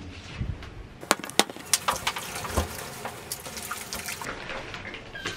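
Steam iron pressed over fabric on an ironing board: a watery hiss of steam with several sharp clicks and taps, heaviest between about one and four seconds in.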